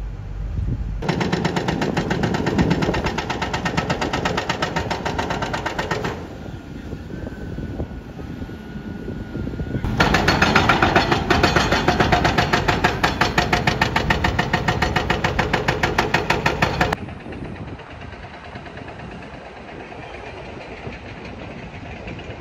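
Excavator-mounted hydraulic breaker hammering concrete in rapid, even blows during building demolition, in two long stretches that start and stop abruptly, with the machines' engines running in the quieter gaps.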